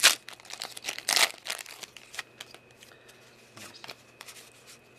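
Foil wrapper of a Pokémon trading-card booster pack crinkling and tearing as it is opened and the cards are pulled out. A sharp crackle comes at the start and another about a second in, then lighter rustling that fades to faint ticks of card handling.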